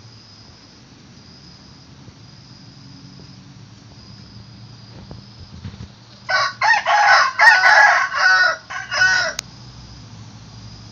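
A rooster crowing once. The crow starts a little past halfway and lasts about three seconds, broken into several syllables, and cuts off sharply.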